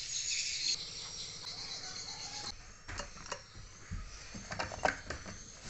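Dense, high-pitched chirring of swiftlet calls over a garden, ending abruptly about halfway through. After that come a few scattered soft clicks and knocks.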